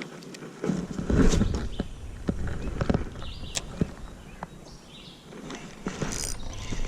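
Irregular knocks, clicks and rustling from handling fishing gear in a kayak, loudest in a cluster of thumps about a second in.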